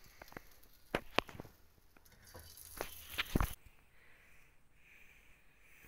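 Metal spatula clinking and scraping against a plate as cooked prawns are pushed into place: a handful of sharp clicks over the first three seconds, ending with a dull thump, then near quiet.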